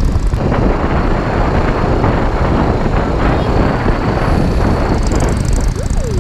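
BMW G310GS single-cylinder motorcycle engine running under way, with steady wind rush on the helmet-mounted microphone.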